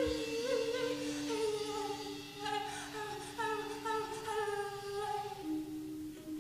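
Jazz ensemble playing a slow, sustained passage: one steady held note sounds underneath while several voices or instruments above it slide up and down in pitch.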